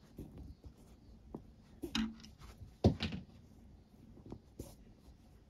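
Nylon paracord rustling and scraping as it is pulled tight through a macrame knot by hand, with two sharper knocks about two and three seconds in.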